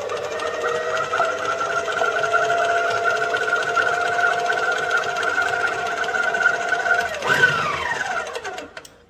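Electric stand mixer beating cake batter on low speed: a steady motor whine, until about seven seconds in it is switched off and the whine falls in pitch as the motor spins down.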